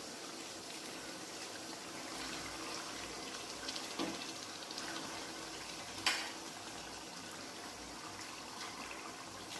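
Onion and spice masala frying in oil in a pan: a steady, soft sizzle, with two short knocks about four and six seconds in.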